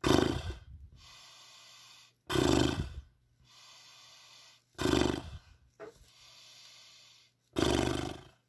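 A man blowing air through loose, fluttering lips in horse-like snorts (lip trills), four of them, each under a second and about two and a half seconds apart. It is done to relax the lips and tongue after tensing exercises.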